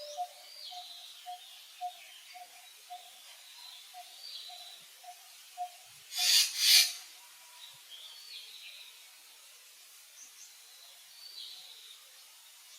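Outdoor bird calls: a steady series of short, low repeated notes for the first half, with chirping calls higher up throughout. About six seconds in there are two short, loud noise bursts in quick succession, the loudest sounds here.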